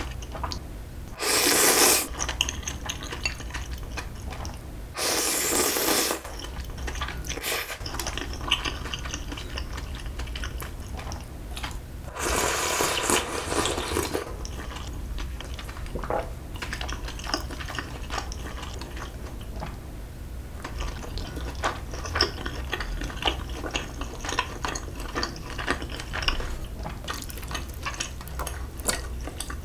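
Close-up eating sounds: instant ramyeon noodles slurped loudly three times, once early, once around five seconds in and once for over a second about halfway, the last with a bowl of broth raised to the mouth. Between the slurps, steady chewing and small clicks of chopsticks against metal and ceramic bowls.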